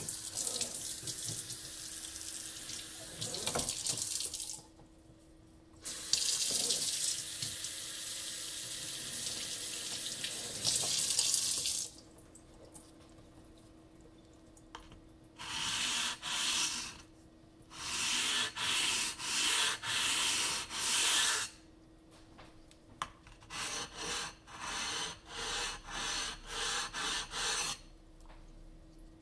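Water from a sink tap running and splashing onto a whetstone and its holder, in two long stretches. Later come shorter bursts and then a quick run of short rubbing strokes, about two a second.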